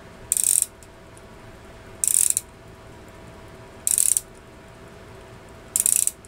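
Mainspring of a Mappin and Webb carriage clock movement being wound with a key. The click and ratchet wheel rattle off four short runs of rapid clicks, one with each turn of the key, about two seconds apart.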